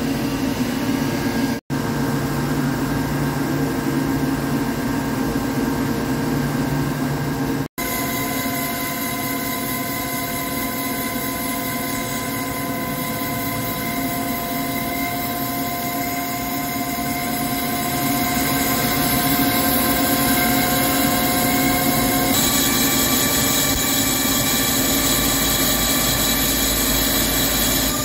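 Hankook CNC lathe turning a ductile iron roll: the spindle running steadily while the tool cuts, a loud machine sound with several steady whining tones. It cuts out briefly twice in the first eight seconds, and its tones change about two-thirds of the way through.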